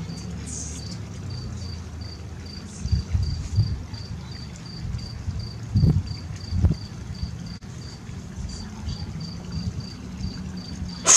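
A cricket chirping steadily, about three short high chirps a second, over a low rumble that swells louder about three and six seconds in.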